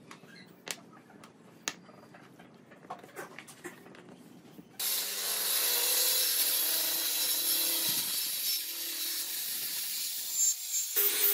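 Scattered light clacks of small wooden pieces being set down on a tabletop, then, about five seconds in, a Maktec MT583 circular saw starts cutting along the edge of a wooden panel with a loud, steady hiss. The cut stops briefly and starts again near the end.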